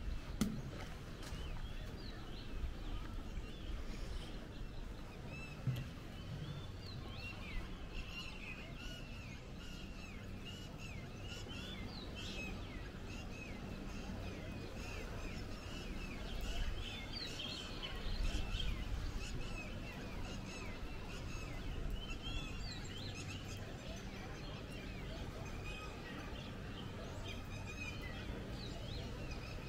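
Many small birds chirping in quick, short calls throughout, over a steady low hum of background noise.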